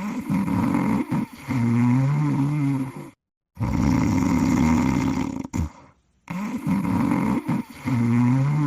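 Snoring in a repeating cycle, about three snores. Each is a rasping, rattling breath followed by a wavering pitched tone, with short silent gaps between the snores.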